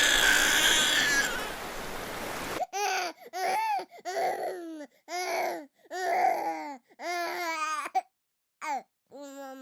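Surf noise from waves for the first couple of seconds, cut off abruptly, then a baby crying in a string of short wails, about one every half second, with brief gaps between them.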